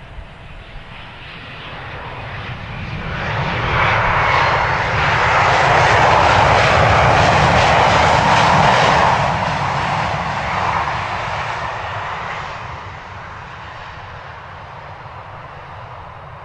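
Boeing 737 airliner's turbofan engines in reverse thrust on the landing roll. The engines spool up to a loud, rushing peak a few seconds in, hold for several seconds, then spool down and fade as the aircraft slows.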